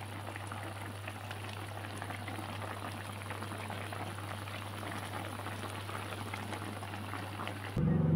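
Chicken pieces simmering in turmeric-spiced broth with bay leaves, the liquid bubbling with a steady crackle of small pops over a low hum. This is the spice-simmering (ungkep) stage that tenderises the chicken and soaks in the seasoning before frying. Near the end the sound cuts abruptly to a louder low hum.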